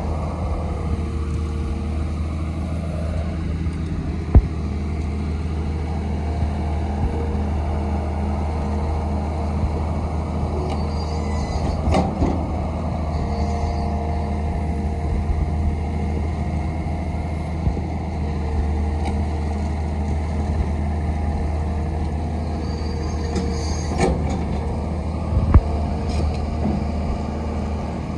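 Volvo long-reach excavator's diesel engine running steadily while the hydraulic boom and arm move slowly, with a few sharp knocks from the machine.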